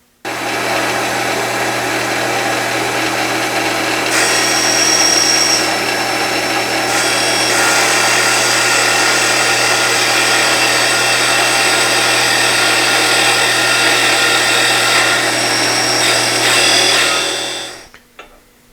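CNC wood lathe turning wood with a cutter, a steady motor hum under the cutting noise, with high-pitched whining tones that come and go. The whine is the side of the cutter rubbing on the work when deep in the cut, for lack of side relief on the tool. The sound starts abruptly at the beginning and dies away near the end.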